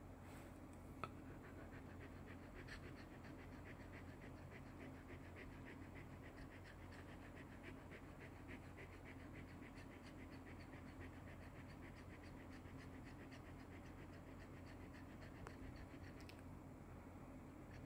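Shetland sheepdog panting softly through an open mouth: a rapid, even run of faint breaths that stops near the end.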